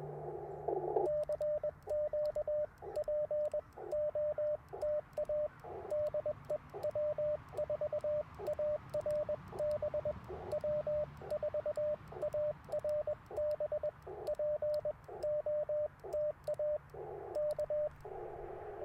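Morse code sent on an Icom IC-705: a steady, mid-pitched sidetone keyed in dots and dashes, with the receiver's hiss cutting back in during pauses between characters. Faint clicks run along with the keying.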